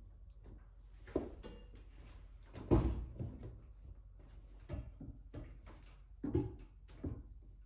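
A run of knocks and thuds as a person steps on and off a Ford Bronco's DV8 OE Plus side step and opens the rear door. The loudest thud comes nearly three seconds in.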